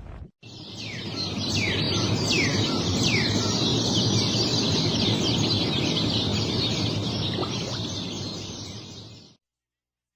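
A flock of birds chirping together, a dense chorus of quick falling chirps over a steady background hiss, which fades and cuts off near the end.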